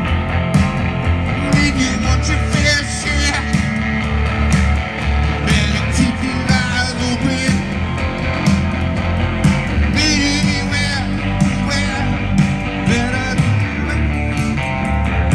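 Live blues band playing amplified on stage: a singer's voice over electric guitar and a steady beat.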